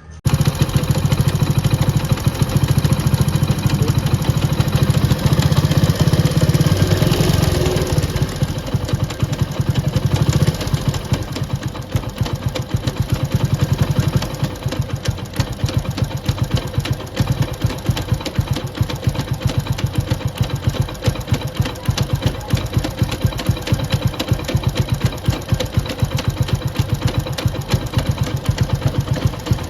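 A Hero Honda motorcycle's single-cylinder engine running, with the rumbling, rattling 'khadar madar' noise that comes from inside the gearbox even in neutral. It is louder for about the first ten seconds, then settles to a steady run. The noise is caused by bent teeth on the third-gear sprocket, which make the output shaft jerk.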